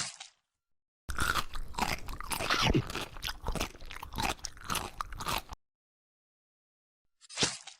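Crunchy chewing and biting, eating-ASMR style, lasting about four seconds with many sharp crackly strokes. A short swish comes just before it and another near the end.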